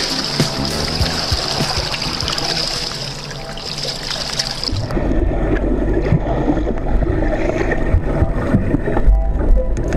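Swimming-pool water splashing and lapping at the overflow gutter grate. About five seconds in, the sound turns suddenly muffled and rumbling, heard from underwater.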